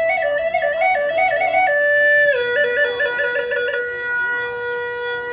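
Hmong bamboo flute (sáo Mông) played solo in an improvised melody. Quick trilled runs flick between neighbouring notes, with a brief held note about two seconds in, then more trills that settle onto a long held low note near the end.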